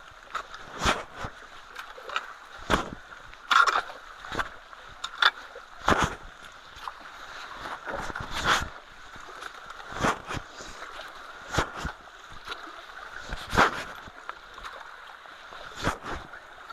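Water splashing and sloshing in irregular strokes, about one a second, over steady running water, as debris is pulled from a clogged culvert inlet.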